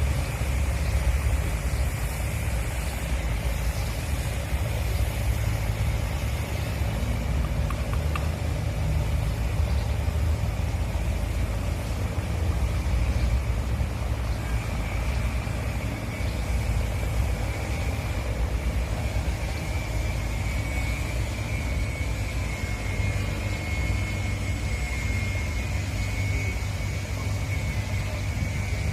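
Steady low engine rumble with a faint high-pitched whine that grows a little stronger in the second half.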